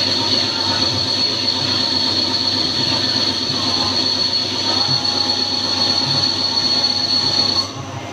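Wintec TC15 CNC lathe running, with a steady high-pitched whine over a mechanical hum. The whine cuts off suddenly near the end.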